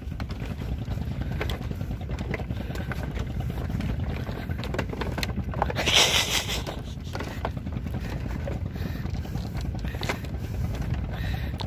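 Footsteps on a lashed-bamboo walkway over the sea, the slats giving scattered light knocks and creaks, over a steady low rumble; a brief hiss comes about six seconds in.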